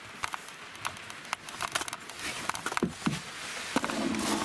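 Rain pattering on a tiny house roof, with irregular sharp clicks and rustling as the camera is handled and brushes against a towel.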